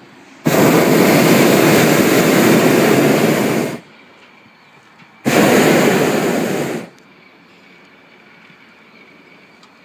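Hot air balloon's propane burner firing two blasts, the first about three seconds long and the second about a second and a half, each a loud steady rush that starts and cuts off abruptly.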